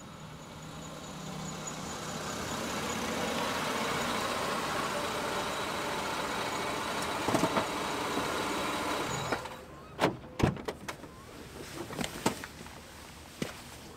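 A parked sedan's engine running steadily, then cut off suddenly about nine seconds in. After it comes a run of clicks and clunks as the driver's door is unlatched and swung open and the driver steps out onto the pavement.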